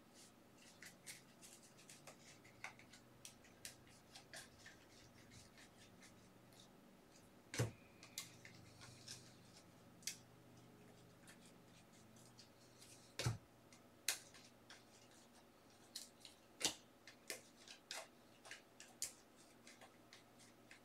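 Faint, irregular clicks and soft slaps of Upper Deck hockey trading cards being flipped through by hand, card stock sliding and snapping off the stack, with a few sharper snaps.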